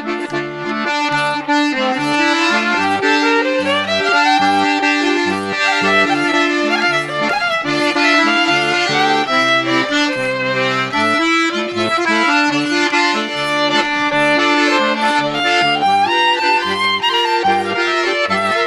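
Accordion and violin playing an instrumental duet: the accordion keeps up sustained chords over a pulsing bass while the violin plays the melody, sliding upward a couple of times.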